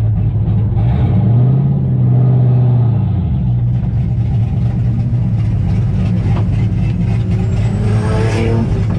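LS V8 engine of a Nissan S14 drift car running at low, steady revs, with a brief rise in revs between about one and three seconds in.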